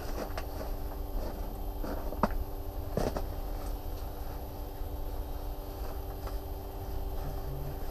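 A steady low mechanical hum with a few scattered clicks and knocks.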